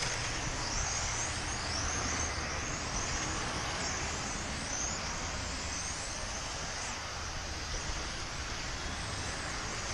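Several electric 1/10-scale on-road RC race cars lapping, their motors giving high whines that rise and fall again and again as the cars speed up and slow through the corners, over a steady background hiss.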